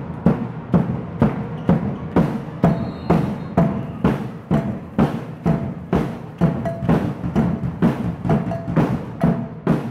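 Fans' drums beating a steady, even rhythm of about three strokes a second, with short higher tones over them now and then.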